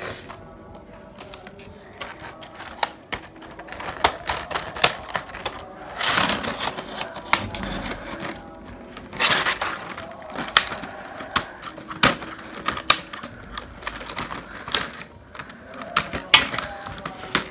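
Clear rigid plastic clamshell packaging of a paint-brush set clicking and crackling as hands press, bend and pry at it to get it open. There are longer crinkling bursts about six and nine seconds in.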